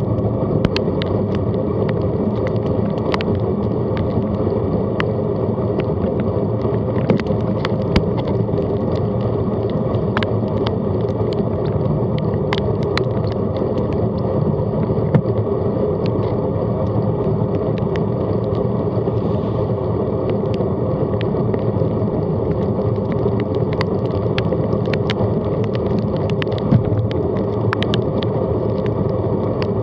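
Steady wind rumble and wet tyre noise from a bicycle riding on a rain-soaked road, with frequent sharp ticks of raindrops hitting the camera.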